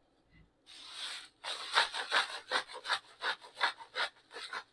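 Salt dispensed from a salt container over a pot: a run of short scratchy rattles, about three a second.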